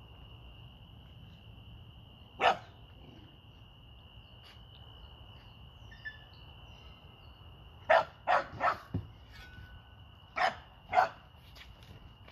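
American pit bull terrier barking six times: once about two seconds in, a quick run of three about eight seconds in, then two more near the end.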